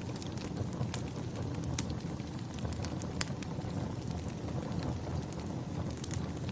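Wood fire crackling: a steady low rushing of the flames with scattered sharp pops, the two loudest about two and three seconds in.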